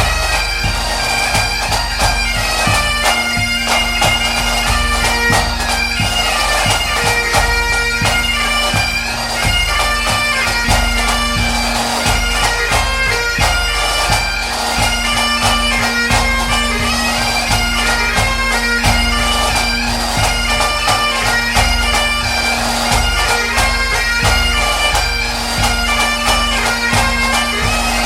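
Bagpipe music: a steady drone under a quick melody of short, ornamented notes.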